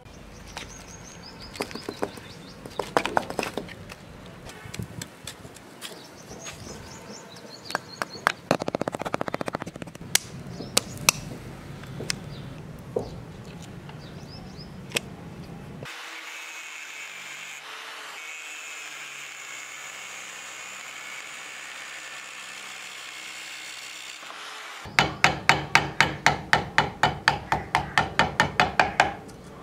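Irregular knocks and scraping as a freshly cast brass guard is broken out of its sand mould and chipped clean, then a steady hum for several seconds. Near the end comes the loudest part: a fast, even run of sharp strokes, about five a second, on the brass casting clamped in a vise.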